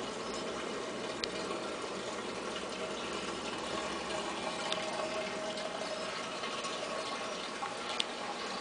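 Steady bubbling and trickling of water in running aquariums, from their filters and aeration, with a faint hum and three small clicks.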